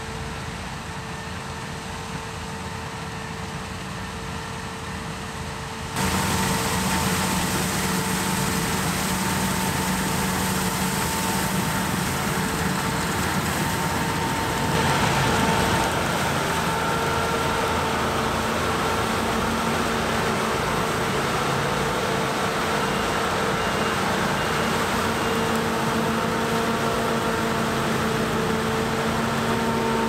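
Combine harvesters at work in a canola crop: engine and threshing machinery running with a steady drone and several held tones. The sound jumps louder about six seconds in, as the Claas Lexion 600 is heard up close, and shifts in tone about halfway through.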